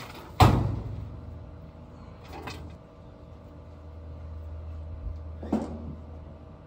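A sharp knock about half a second in, the loudest sound, followed by two softer knocks near two and a half and five and a half seconds, as objects are handled and set down, over a steady low hum.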